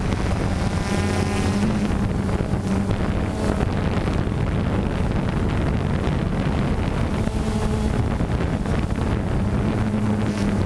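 DJI Phantom 2 quadcopter's four electric motors and propellers droning, picked up by the GoPro Hero3 mounted on it, with wind rushing over the camera's microphone. A steady low hum under the rush of wind.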